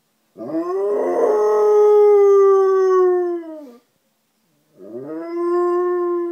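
Nine-month-old Alaskan malamute howling: one long howl that swoops up, holds steady and sags slightly before dropping off, then a second howl starting about a second later near the end.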